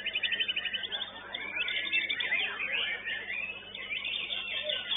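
White-rumped shama (murai batu) in full song: a fast, varied stream of high whistles, chirps and trills, opening with a rapid run of repeated notes.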